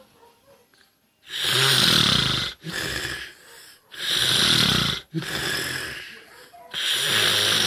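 A person snoring loudly. Three loud snores begin about a second in and come roughly every two and a half seconds, each followed by a quieter breath out.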